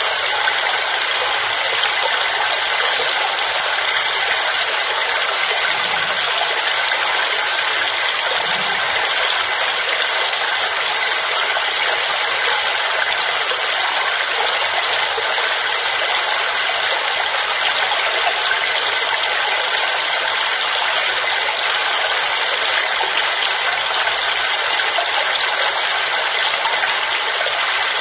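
Waterfall: a steady, unbroken rush of falling and splashing water, its sound mostly high with little deep rumble.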